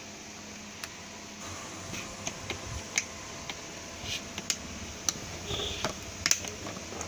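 Irregular small plastic clicks, taps and short scrapes as an electronic choke (tube-light ballast) is worked loose and pulled off its plastic batten.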